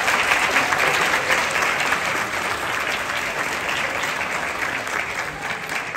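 Audience applauding, loudest at first and easing off slightly.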